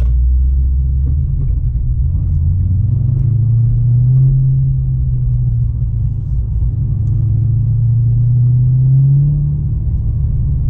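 HSV Commodore's V8 running at low revs while the car crawls into a car park; its note rises a little about two seconds in, holds steady, and eases near the end.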